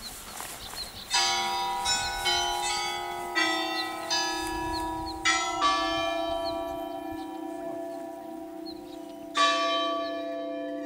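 Church bells being rung: about a dozen strikes on bells of different pitches, each ringing on long and overlapping the next, starting about a second in, with a quieter stretch in the middle before two fresh strikes near the end.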